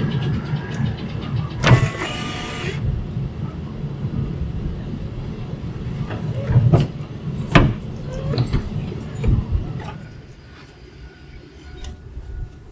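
GM pickup truck being tried out after a wiper motor controller swap: a low rumble with sharp clicks and knocks, and a short multi-tone chime about two seconds in. The sound drops away after about ten seconds.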